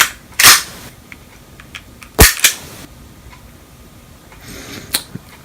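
Sharp mechanical clicks from a KWA USP Compact airsoft pistol being handled: a short rustle, then two hard clicks about a fifth of a second apart a little after two seconds in, and a fainter click near the end.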